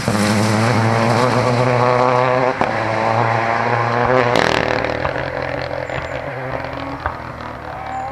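Renault Clio rally car engine running hard at high revs, with a brief dip about two and a half seconds in, then fading as the car pulls away.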